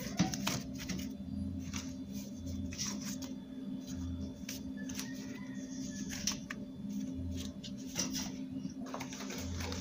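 Husk-wrapped ears of corn rustling and knocking as they are laid side by side in a stainless steel stockpot, a run of short irregular crackles and taps.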